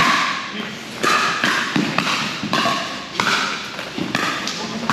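Pickleball paddles striking a hard plastic ball in a fast rally: a quick, irregular string of sharp pops, about ten in five seconds, each trailing a short echo.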